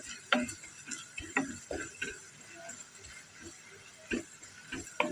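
Wooden spoon stirring onions and spices frying in a nonstick kadai, knocking and scraping against the pan in irregular strokes about once or twice a second, over a faint steady sizzle of the oil.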